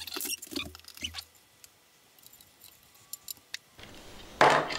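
Small clicks and rustles of wires being handled in an open metal amplifier chassis, a few isolated ticks, then a brief louder rustle near the end.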